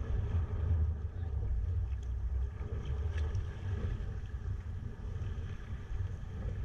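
Wind buffeting a GoPro's microphone on a sea kayak, a low fluctuating rumble, over the wash of water around the boat with a few faint splashes.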